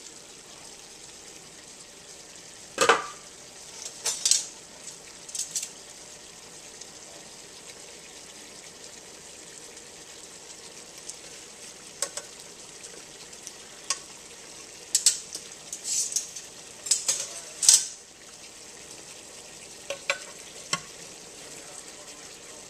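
Meatballs sizzling steadily in the pot of a Ninja multicooker, with a dozen or so sharp clacks and scrapes of metal tongs against the pot as they are turned. The clatter comes loudest about three seconds in and in a cluster between about fifteen and eighteen seconds in.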